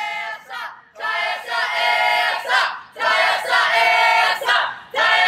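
A group of high-pitched voices shouting together in long drawn-out calls, one after another with short breaks between them.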